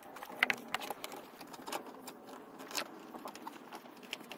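Gloved hands working a rubber ribbed serpentine belt around the engine pulleys: scattered light clicks, taps and scratchy rustling as belt and gloves rub against the pulleys and engine parts.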